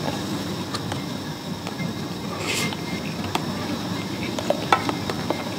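Light clicks of a fork against a plastic food container while eating, scattered over steady room noise, with a brief hiss about halfway through.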